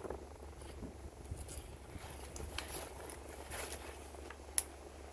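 Faint, scattered crunching and crackling of microwaved pork skins being chewed, with one sharp click near the end, over a steady low hum.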